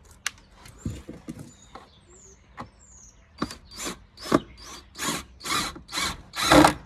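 Drill driving a screw into a wooden board in short repeated bursts, about two a second, growing louder over the last few seconds, after a few light clicks and knocks.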